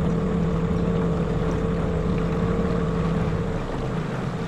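Boat motor running steadily under way, with a constant hum, easing off slightly near the end.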